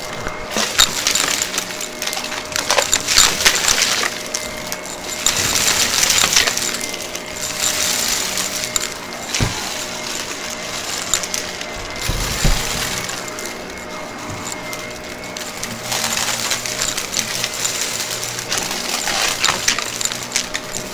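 Shark upright vacuum running with a steady motor whine as its brushroll passes over carpet. Small beads and grit rattle and click up through the machine in clusters each time it passes over a patch of debris.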